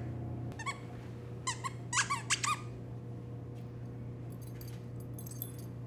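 Squeaky plush dog toy squeezed several times in quick succession: a handful of short high-pitched squeaks, mostly packed between about one and a half and two and a half seconds in.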